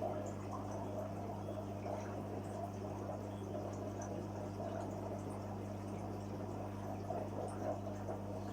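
Water bubbling and trickling over a steady low hum, as from the pump and aeration of a koi fry tank.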